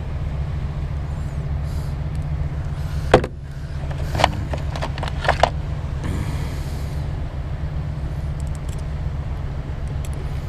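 Steady low engine rumble, as of an idling motor vehicle, with a few sharp clicks and knocks between about three and five and a half seconds in and a brief hiss shortly after.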